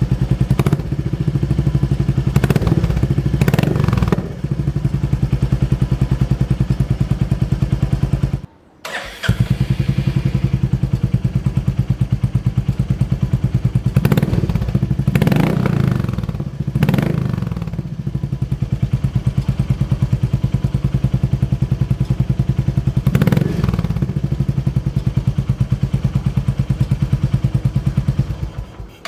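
Royal Enfield Meteor 350's single-cylinder engine, fitted with an aftermarket exhaust, idling with short throttle blips that rise and fall in pitch, three times. The sound breaks off briefly about nine seconds in and resumes at idle.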